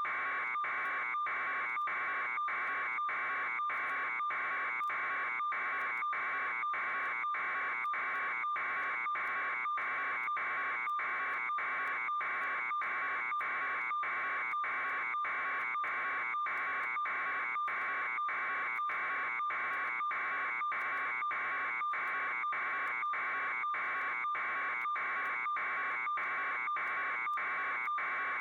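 Electronic buzzing tone, pulsing evenly a few times a second without change.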